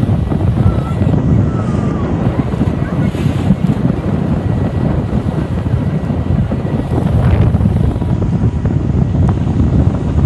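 Strong wind buffeting the microphone: a loud, steady low rumble that covers almost everything else.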